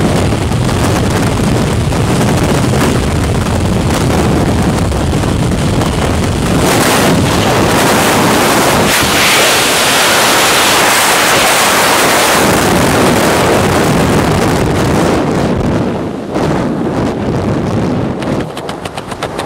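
Wind rushing over the camera microphone during tandem skydiving freefall, a loud steady rush. Near the end it eases and breaks into a rapid flutter.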